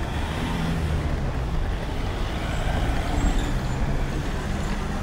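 Road traffic with a heavy vehicle's engine running close by, a steady low rumble.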